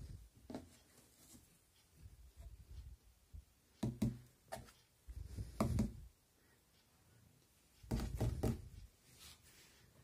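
Dull knocks, thuds and scuffs of a cardboard box being handled on a wooden floor with a cat moving inside it, coming in a few short clusters.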